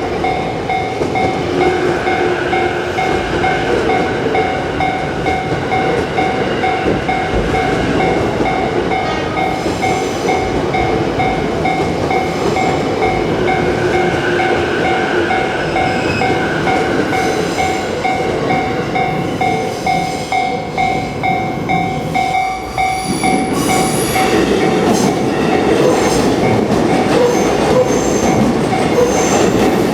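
Japanese level crossing warning bell ringing its repeated "kan-kan" over a passing train's rumble and wheel clatter. The bell stops about three-quarters of the way through, and the train noise then grows louder.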